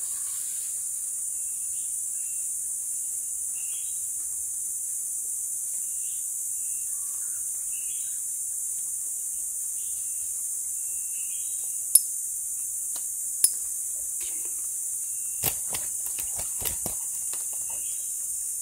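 Steady high-pitched drone of rainforest insects, with short chirps repeating every second or two. Two sharp clicks come about two-thirds of the way through, then a quick run of clicks and snaps near the end.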